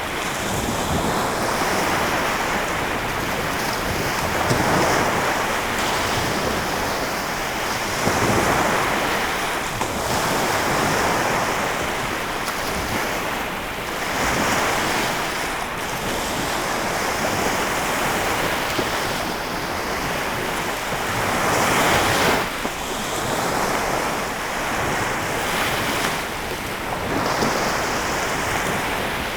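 Lake Michigan waves washing onto the shore, a steady rush that swells and eases every few seconds as each wave breaks. Wind is on the microphone.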